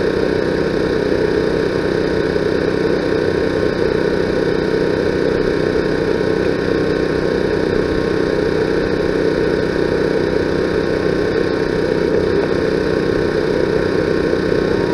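A steady engine hum, running at an unchanging level.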